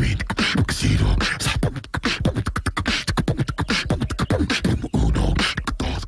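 Beatboxing: a fast run of sharp mouth clicks and deep bass thumps.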